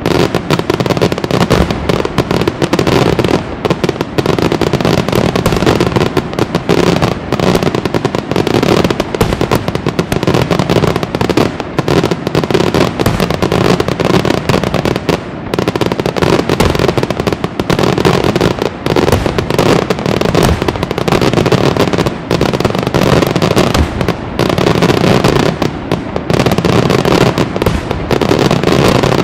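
Daytime fireworks barrage: firecrackers going off in an unbroken string of loud bangs, many a second.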